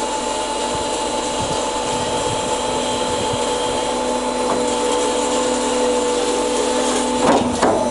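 Beka-mak BMSO 320GLH automatic bandsaw running in auto mode, its blade sawing through a piece of wood with a steady motor whine. A brief clatter comes near the end, as one of the whine's tones drops away.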